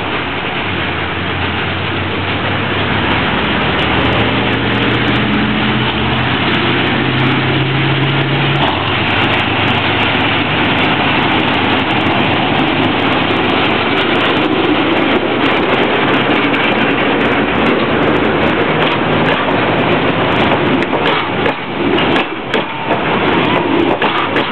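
Narrow-gauge diesel locomotive pulling away, its engine revving up in steps in the first several seconds, then the train rolling past close by with a heavy rumble; near the end the passing carriages' wheels click over the rail joints.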